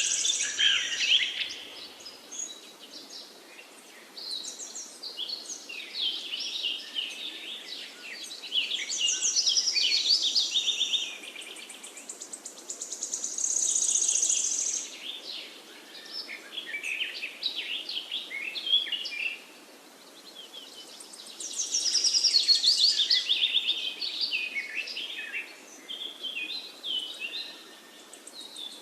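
Songbirds singing in overlapping phrases, with loud rapid trills that come back every few seconds, over a steady background hiss.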